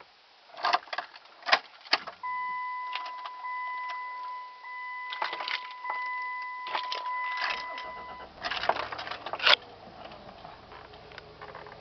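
Keys jangling and clicking in the 2000 Dodge Caravan's ignition, then a steady electronic warning tone for about six seconds. As the tone stops, the engine cranks and starts, settling into a low, steady idle hum.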